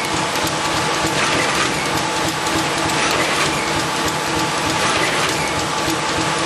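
IBIS Smart-binder machine with its attached pile driver running: a continuous, even mechanical clatter of gears and ratcheting parts, swelling slightly about every one and a half to two seconds.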